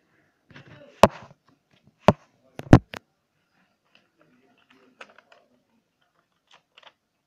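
Five sharp knocks in the first three seconds as the webcam is handled and repositioned, then faint rustling and crinkling of a sheet of paper being folded by hand.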